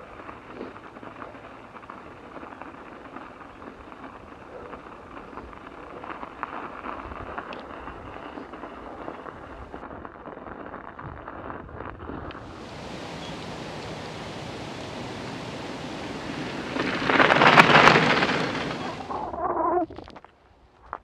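Mountain bike tyres rolling over packed snow with a steady hiss of wind on the camera microphone. About two-thirds through, a loud rush of wind over the microphone swells, peaks and cuts off, followed by a few short knocks.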